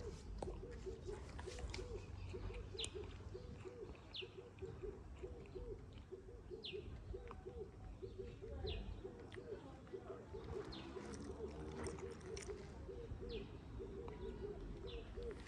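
Faint dove cooing in a steady repeated series, with a bird's short high chirp about every second and a half.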